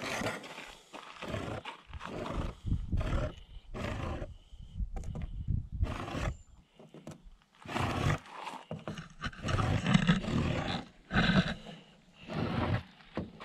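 Handheld torch flame burning with a rough rush that surges and drops unevenly, heating a fresh JB Weld epoxy patch so trapped air bubbles rise out.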